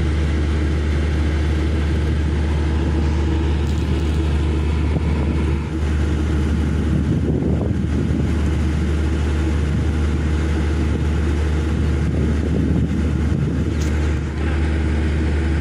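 An engine running steadily with a constant low drone, with no change in speed.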